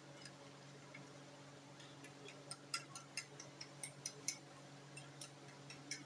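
A metal utensil tapping and clinking against a ceramic plate while whisking egg and milk, a run of light irregular clicks starting about two seconds in, over a steady low hum.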